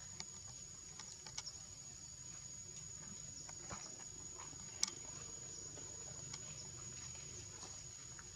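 An insect drone holding one steady high pitch, with scattered soft clicks and a single sharp click about five seconds in.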